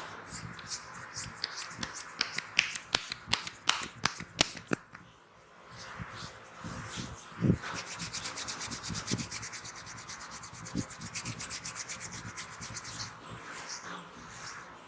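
Hands massaging a head and hair. There is a run of sharp, irregular clicks for the first five seconds, then steady rubbing with rapid fine ticks. A single soft thump comes about seven and a half seconds in.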